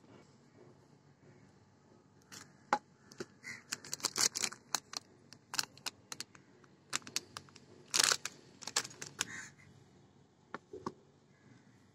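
Crisp fried snacks being bitten and crunched: irregular sharp crackles and clicks that come in clusters, the loudest crunch about eight seconds in.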